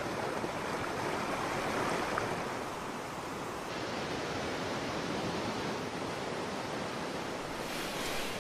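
Steady rush of whitewater river rapids, turning a little brighter and hissier about four seconds in.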